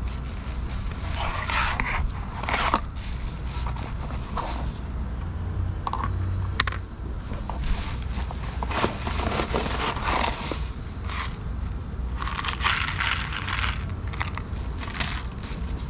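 Dry cat kibble and plastic packaging handled in a series of short scraping, crunchy bursts, the kibble rattling out of a plastic tub onto a plastic plate, over a steady low rumble of street noise.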